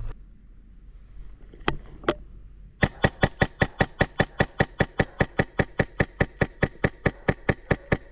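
Airsoft gun firing: two single shots, then from about three seconds in a steady, even stream of sharp cracks at roughly five a second.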